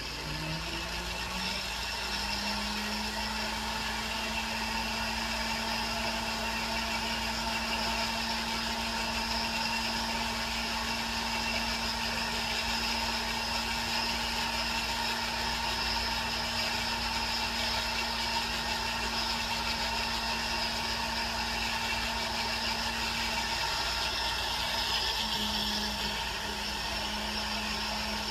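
Small electric motor of a jeweler's bench tool spinning up with a rising hum over the first two seconds, then running at a steady speed with a hiss, as the freshly welded charm bail is smoothed. Its pitch sags briefly about 23 seconds in and comes back up.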